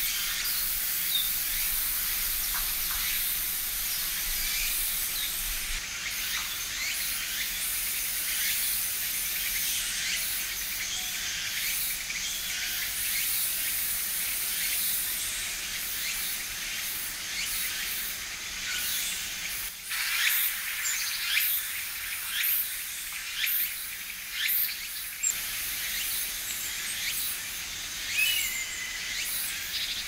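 Scattered short bird calls over a steady high-pitched insect buzz. About twenty seconds in, the background changes and the calls come sharper and more often.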